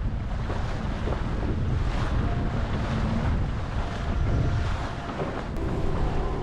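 Wind buffeting the microphone over the rush of water along the hull of a small Mini 6.50 racing sailboat under sail. Faint held piano notes come in near the end.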